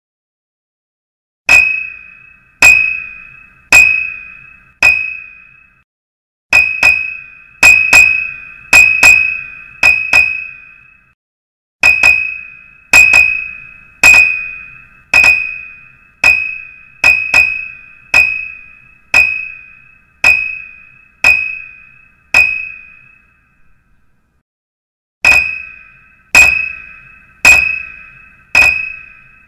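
Bell-like dings repeated roughly once a second, each a sharp strike that rings out and fades, starting about a second and a half in and pausing briefly a few times, once for longer near the end.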